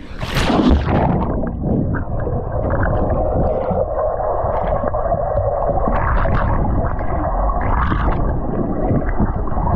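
A person jumping into a swimming pool: a splash about half a second in, then the muffled, gurgling rumble of water and bubbles heard with the microphone underwater.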